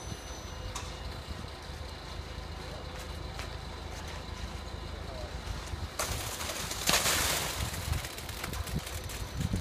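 Wet concrete pouring out of a crane-hung concrete skip onto the slab: a rushing hiss that starts suddenly about six seconds in and is loudest a second later, over a low steady site rumble.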